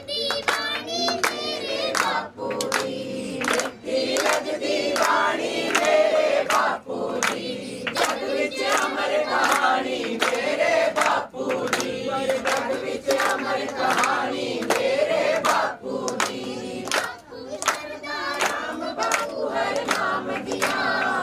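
A young girl singing a Punjabi devotional song in praise of Bapu, with other voices joining in and hands clapping steadily to the beat, about two claps a second.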